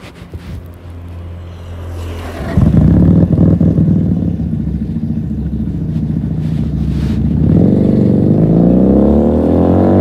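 Motorcycle engine idling softly, then running much louder from about two and a half seconds in, and revving up with a steadily rising pitch near the end as the bike accelerates away.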